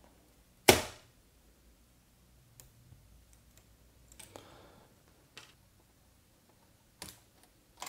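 A loud sharp click about a second in, then several fainter clicks and a brief soft rustle, from a white flat ribbon cable being pulled free of an LCD monitor's metal back frame and parts being handled on the frame.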